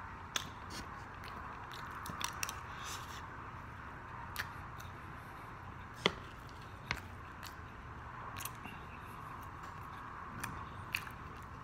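Close-up eating sounds of a person biting and chewing fried chicken and pulling the meat off the bone, with scattered short clicks and crackles, the sharpest about six seconds in.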